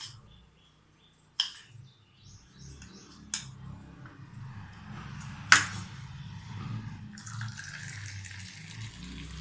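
A few sharp clinks of a spoon against a vessel, the loudest about five and a half seconds in, then a steady stream of liquid pouring from about seven seconds in: sugar going into the strained herbal milk tea, which is then poured.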